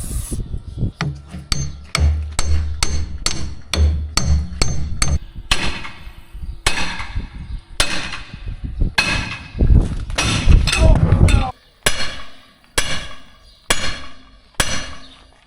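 Sledgehammer blows on steel, driving a hex shaft through tight new clutches on a corn head, each strike ringing; roughly two blows a second at first, slowing to about one a second near the end. A loud low rumble comes in for a couple of seconds past the middle.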